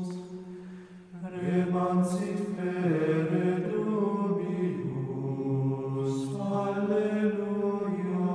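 Slow sung plainchant: long held notes that step from pitch to pitch, with a couple of soft hissed consonants.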